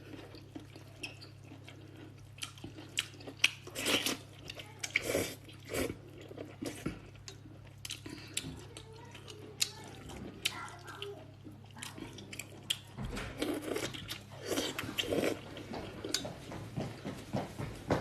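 Close-up wet eating sounds: chewing and slurping sour-and-spicy sweet-potato noodles in broth, an irregular run of soft smacks and squelches, over a faint steady low hum.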